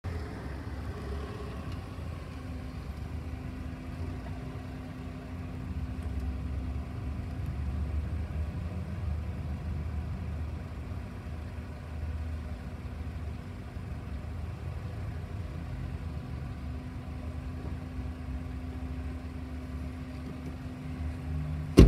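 A 2007 Chrysler PT Cruiser convertible's four-cylinder engine idling steadily while its power soft top is lowered.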